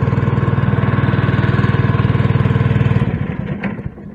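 Small boat engine running steadily at a fast, even beat, then cutting off about three seconds in and dying away.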